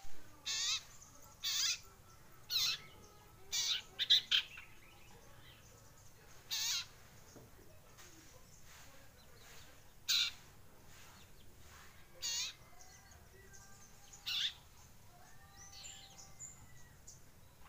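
Young common iora (cipow), about a month old, practising its calls: short, harsh chirps about a second apart at first, then more spaced out. Fainter whistled notes come in near the end.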